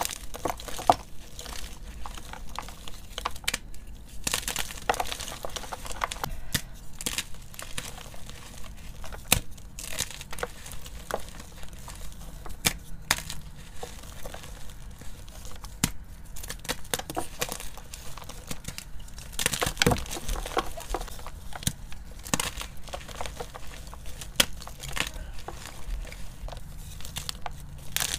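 Blocks of gym chalk squeezed and crumbled by hand, giving an irregular run of soft crunches and sharp crackles as the chalk breaks apart into powder.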